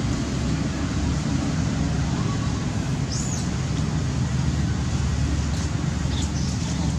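Steady low rumble of road traffic or a running vehicle engine, with one short high chirp about three seconds in.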